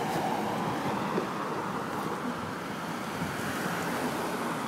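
Ford F-150 pickup truck driving past on the street, its tyre and engine noise loudest in the first second, over a steady rush of wind on the microphone.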